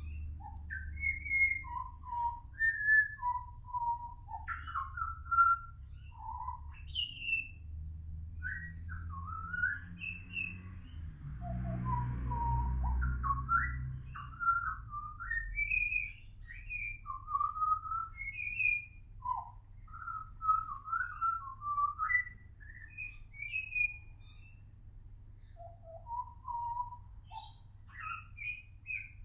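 Juvenile pied butcherbird singing a long, rambling run of fluty whistled notes that slide up and down in pitch. A brief low rushing noise swells under the song near the middle.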